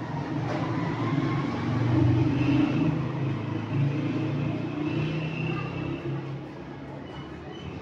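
Low rumble of a passing motor vehicle, swelling to its loudest about two seconds in and fading toward the end.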